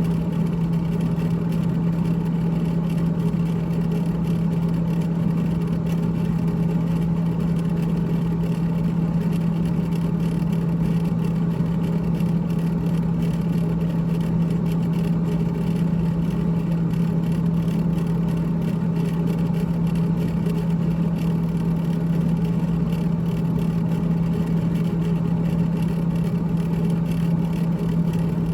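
Evaporator fan of a GE GTH18XCTZRBB refrigerator running with a steady hum and a rattle.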